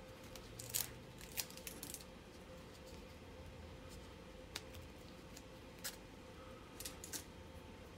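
Sticky tape being peeled off a rolled diamond-painting canvas: scattered short crackles and snaps, a few in the first two seconds and a few more late on, over a faint steady hum.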